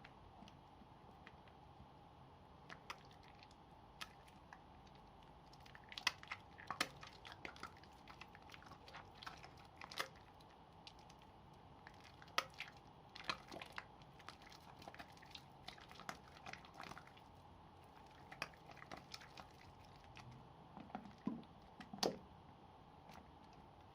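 Soap pieces being lathered by hand: scattered crunchy crackles and clicks, irregular and uneven in strength, with a cluster of louder ones near the end.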